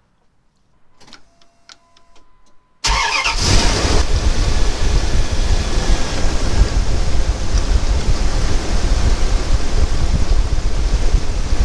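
Dodge Ram's 5.9 Magnum V8 engine running under the open hood, a loud steady rush with a low rumble that cuts in suddenly about three seconds in; before it only a few faint clicks from the filler neck and bottle.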